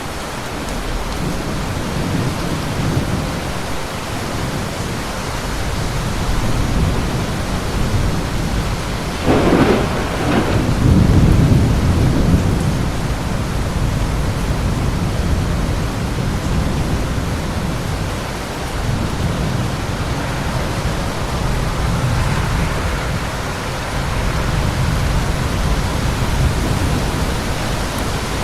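Steady rain during a thunderstorm, with low rumbling thunder underneath; about nine seconds in a thunderclap cracks and rolls into a louder low rumble that dies away over a few seconds.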